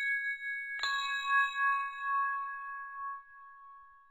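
A bell struck once, about a second in, ringing with several clear tones and fading slowly, over the still-ringing tones of an earlier strike.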